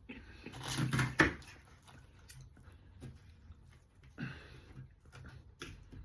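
A man chewing a mouthful of flaky pastry pie, with soft crackly mouth and eating noises, most of them in a short burst about a second in and then scattered faint clicks.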